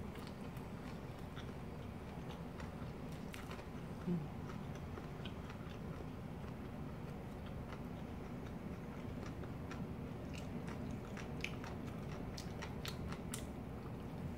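Close chewing and biting of a seaweed-wrapped rice roll filled with flying fish roe and pickled radish: faint crisp clicks and crunches, more frequent in the second half, over a steady low hum.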